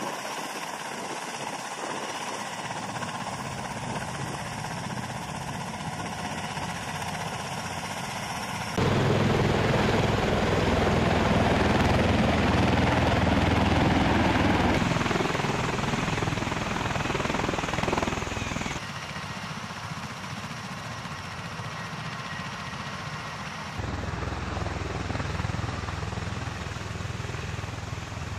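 MV-22 Osprey tiltrotor's twin turboshaft engines and proprotors running, heard over several cut-together shots. The noise jumps louder about a third of the way in and is loudest through the middle as the aircraft flies close, drops back abruptly, then steps up again near the end.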